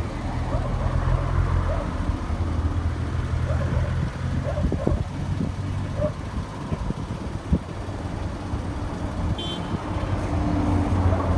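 A vehicle engine running steadily with a low, even hum, with a few faint knocks in the middle and a brief high chirp near the end.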